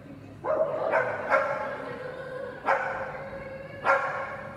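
A dog barking, about five barks, each trailing on for a moment after it.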